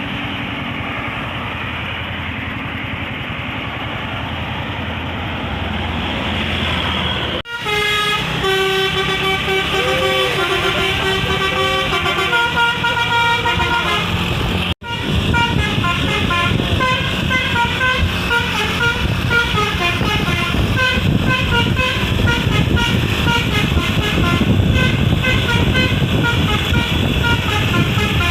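Keramat Jati bus's 'telolet basuri' multi-tone musical air horn playing a quick tune over engine and road noise. The first several seconds hold only the engine and road noise, and the sound breaks off abruptly twice, about 7 and 15 seconds in.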